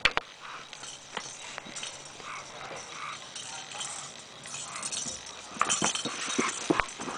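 A pet scrabbling over and mouthing a toy ball: scattered knocks and clicks, one sharp at the start and a busier run of them near the end.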